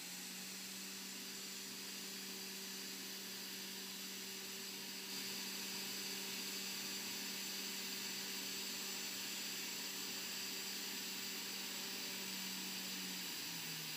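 A steady low hum over a faint, even hiss, a little louder from about five seconds in.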